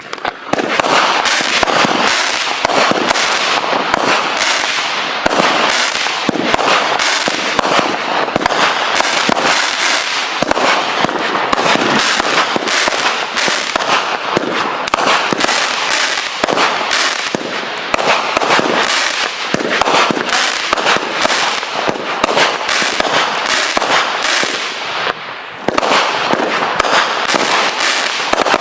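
A 36-shot consumer firework cake, Raccoon Fireworks' Raccoon Swoon, firing its shots in rapid succession: a dense string of sharp bangs and pops with a brief lull near the end.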